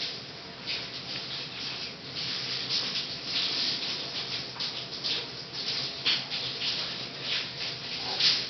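Blanket rustling in many short, scratchy rubs as small puppies squirm and a hand pets them, over the steady hiss of a running shower.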